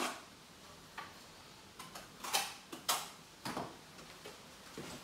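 Tile adhesive being scooped out of a bucket with a steel trowel: a handful of short scrapes and taps, the loudest two a little over two seconds in.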